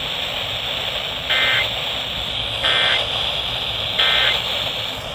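Three short EAS/SAME digital data bursts from a NOAA Weather Radio broadcast, heard as brief, raspy two-tone buzzes about a second and a third apart over a steady hiss of radio static. Their shortness matches the end-of-message "NNNN" code that closes an alert.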